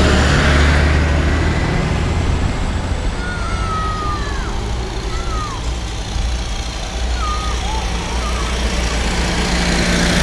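Diesel tractor engines running as they drive past one after another: a red cab tractor's engine at close range fades as it moves away, then a blue cab tractor's engine grows louder as it comes near the end. A few short bird chirps sound in the lull between them.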